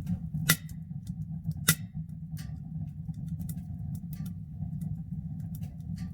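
Wood fire crackling in a tent's wood stove: irregular pops and snaps over a steady low rumble, with two sharper cracks about half a second and nearly two seconds in.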